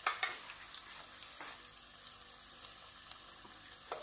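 Spices and ginger paste sizzling steadily in hot ghee in a non-stick kadhai, with a few short clicks of a wooden spatula against the pan near the start and at the end.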